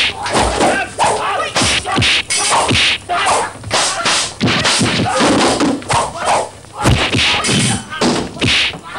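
Fast, irregular fight sound effects: swishing whooshes of swung blows and weapons, with sharp whacks and thuds of strikes landing one after another.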